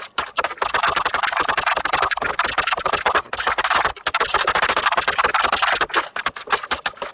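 Two metal spatulas chopping and scraping against a steel pan as banana is worked into a rolled-ice-cream base: a fast clatter of metal taps with a few short pauses.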